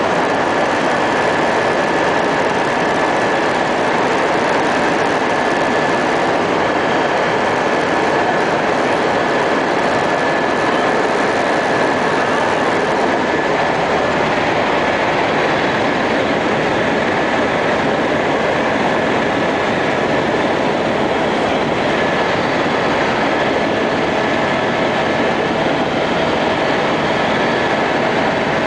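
Helicopter in cruise flight heard from inside the cabin: a loud, constant engine and rotor noise with a thin, steady high whine on top.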